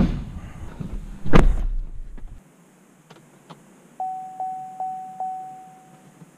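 Two heavy thunks about a second and a half apart, the first the sharpest, then a few light clicks. About four seconds in, the GMC Sierra pickup's electronic warning chime sounds four times, about 0.4 s apart, the last tone ringing out.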